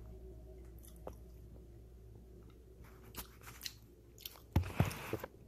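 A person chewing food open-mouthed with wet lip-smacking clicks, now and then, then a quicker, louder run of smacks and clicks near the end.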